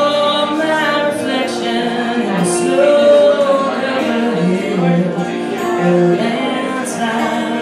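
Fingerpicked acoustic guitar with a woman singing over it, a live voice-and-guitar duo.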